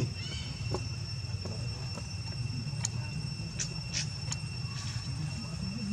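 Insects droning on a steady high pitch, with scattered sharp clicks and taps, several close together about three to four and a half seconds in, over a low rumble.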